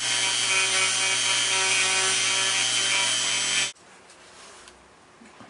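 Handheld flex-shaft rotary tool running at a steady pitch as it cuts into a statue's spear, stopping abruptly about three and a half seconds in.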